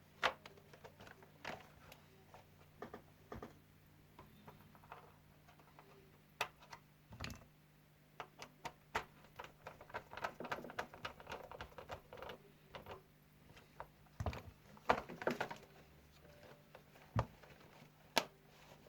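Irregular clicks and taps of parts of an LED ceiling light being handled, with brief scraping and rustling twice.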